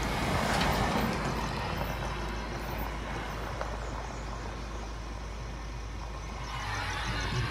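Car road noise: a steady low rumble with a hiss over it that swells about a second in and again near the end.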